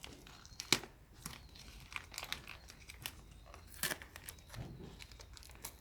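Gift wrapping being torn and crumpled as a present is opened by hand: scattered, irregular crackles and rips.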